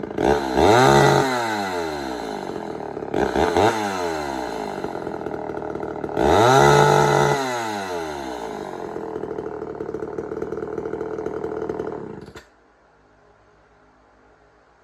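Homelite Super XL two-stroke chainsaw revved up three times, each time falling back to idle. It then idles until the engine cuts off suddenly about twelve seconds in.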